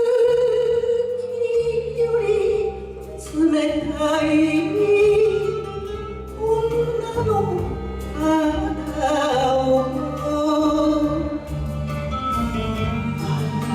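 A woman singing an enka song over a karaoke backing track, holding a long note at the start and later notes with a wavering vibrato.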